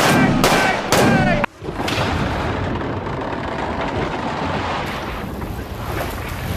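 A sudden loud blast of gunshot-like hits, followed by a long steady rumble of explosion noise: dubbed gunfire and explosion sound effects.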